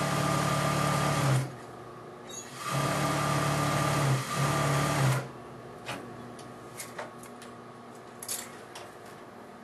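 Juki industrial sewing machine running in three stretches, about a second and a half, then another second and a half, then a short half-second burst, as it stitches face fabric and lining together. A few light clicks follow once the machine stops.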